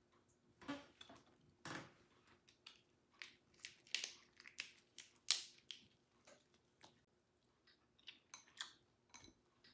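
Close-up eating sounds: a quick string of short crackles, clicks and smacks from chewing and from a cooked lobster tail's shell being pulled apart by hand, loudest about five seconds in.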